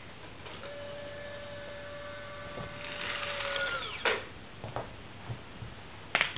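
Small electric motor of an RC front loader's cylinder whining steadily as the bucket tips, then fine gravel pouring out and landing in a plastic toy trailer with a sharp clatter about four seconds in, followed by a few light ticks.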